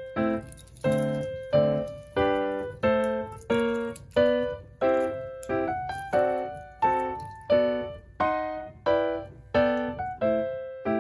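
Background music: a keyboard playing a slow, even run of single struck notes, each note fading before the next one sounds.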